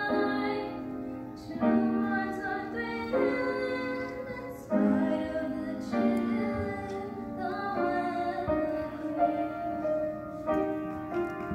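Seventh-grade choir singing with grand piano accompaniment, long held notes changing every second or two.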